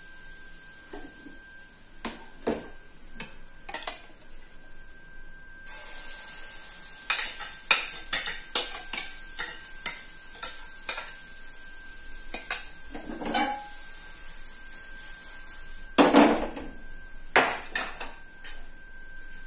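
Metal utensils clinking and scraping against grill pans and a bowl while pancakes are cooked, with a sizzling hiss of batter on the hot pan that starts suddenly about six seconds in and fades about ten seconds later. The loudest clatter comes near the end.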